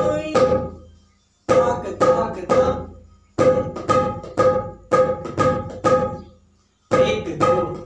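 Dholak played by hand: ringing strokes about two a second, in short groups with brief pauses between them.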